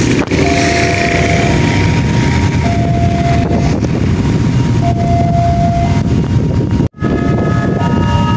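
Railway level-crossing warning alarm sounding, alternating between a lower and a higher tone about once a second over a steady low rumble. Near the end it cuts off sharply and a different, higher set of alarm tones starts.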